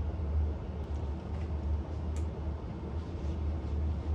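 Steady low mechanical hum from running machinery, with one faint click about halfway through.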